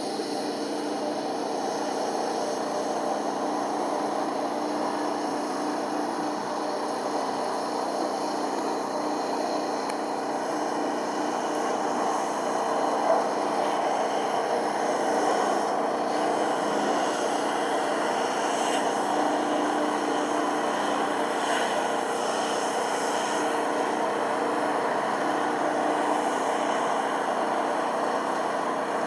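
Twin propeller engines of an amphibious flying boat droning steadily as it descends and lands on the water, with one brief knock about halfway through.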